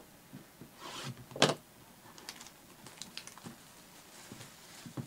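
Clear plastic shrink wrap being torn and peeled off a trading-card hobby box: crinkling and rustling, with one loud sharp crack about a second and a half in, then lighter crackles.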